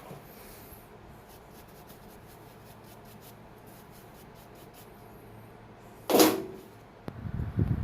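Workbench handling noises: faint light scratchy rubbing, then one sharp knock about six seconds in, and low bumping and rumbling near the end.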